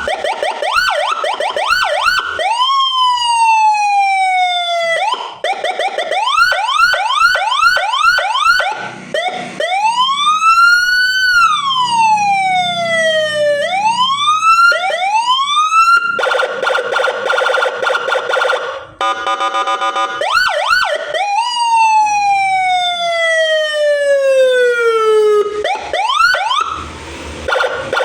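Senken CJB100BD electronic siren module sounding through its speaker and cycling through its tones: bursts of fast rising yelps, long falling sweeps, a slow rising-and-falling wail, and, a little past halfway, about three seconds of a steady buzzy horn tone.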